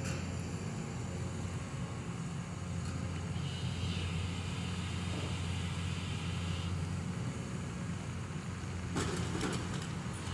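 Caterpillar excavator's diesel engine running steadily with a low drone as the demolition grapple arm moves. A higher whine is heard for a few seconds in the middle, and a short clatter comes near the end.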